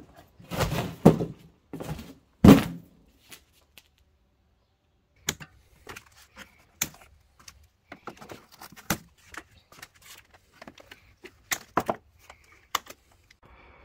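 Cardboard shipping box being pulled open, with scraping and rustling of the flaps and a loud thump about two and a half seconds in. After a short gap come scattered sharp snips as small scissors cut plastic zip ties, among faint rustling of foam packing.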